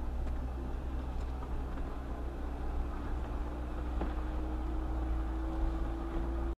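4x4 vehicle driving a rough mountain trail: a steady low engine and drivetrain rumble, with a faint whine that slowly climbs in pitch from about two seconds in and a few light knocks. The sound cuts off abruptly at the end.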